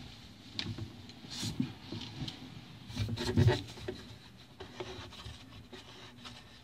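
Handling noise under a sink vanity: a gloved hand rubbing and brushing against the wood, with a few light knocks.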